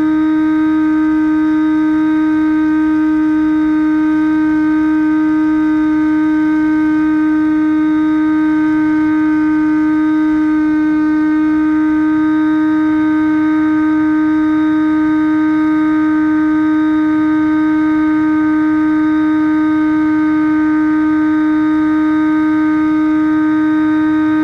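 Brushless outrunner motor (Turnigy D2826-6, 2200 kV) driving a 6x5 inch propeller on a Bixler RC plane, held at steady throttle: one steady whine with a row of overtones.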